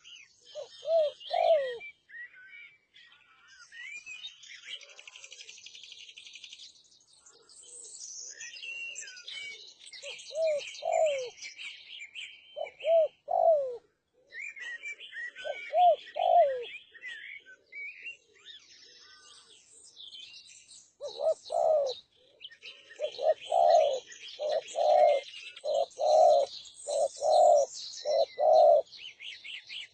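Spotted dove (derkuku) cooing: short coo phrases at intervals, then a faster string of coos near the end. High chirping of other small birds goes on throughout.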